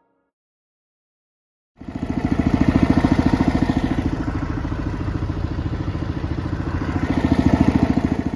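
Almost two seconds of silence, then an engine starts sounding abruptly and runs at a fast, even beat until it cuts off sharply near the end.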